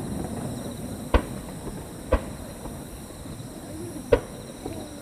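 Distant fireworks bursting: three sharp bangs, the first two a second apart and the third two seconds later, over a steady low background rumble.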